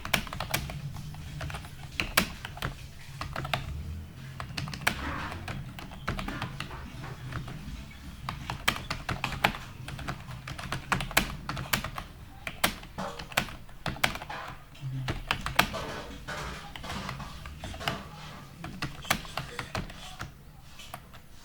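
Typing on a computer keyboard at about 40 words per minute: rapid, irregular keystroke clicks, with a low steady hum underneath.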